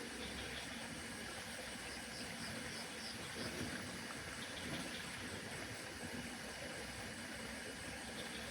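Steady outdoor ambience: an even rush with a faint steady hum under it, and a few faint, short, high chirps, a quick series of them about two seconds in.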